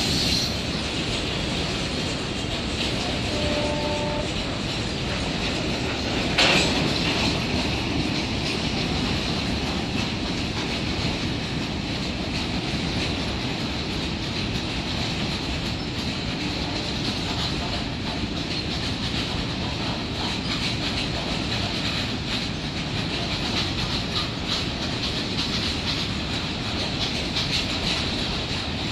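A freight train of tank wagons rolling past: a steady rumble and clickety-clack of steel wheels over the rails, with a high-pitched wheel squeal running above it. There is one sharp clank about six and a half seconds in.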